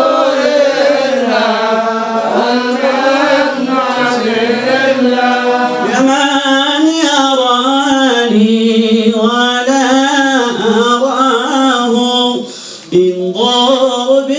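Male voice chanting a Sufi devotional song (inshad) in long, ornamented, wavering notes, with a brief break near the end.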